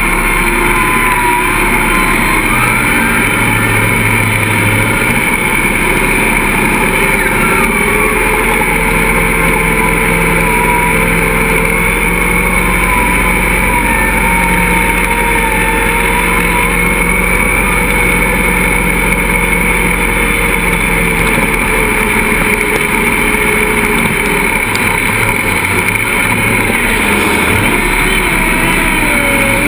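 Off-road 4x4 buggy's engine running loud and steady, heard from an onboard camera, its pitch drifting slowly up and down with the throttle as it works through mud and up a dirt climb.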